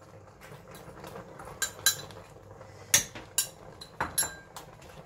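Spoon and small bowl clinking against the rim of a stainless steel cooking pot as seasoning is tipped and tapped in: about half a dozen sharp clinks, starting about a second and a half in.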